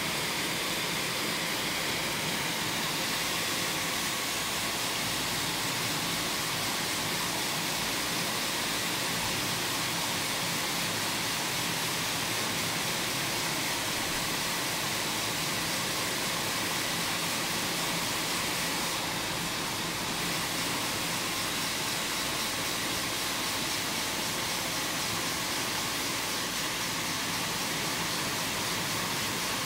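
Steady, even noise of sock-knitting machinery running on a factory floor, with no clear rhythm or knocks.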